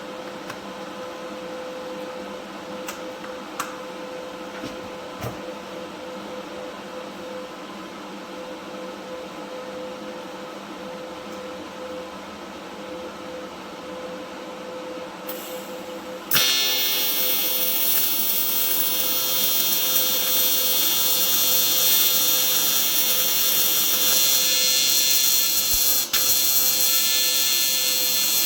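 A low steady hum, then about halfway through an AC TIG arc strikes on aluminum and buzzes loudly and steadily from a PrimeWeld 225X set to a 120 Hz AC frequency. The buzz dips briefly once near the end.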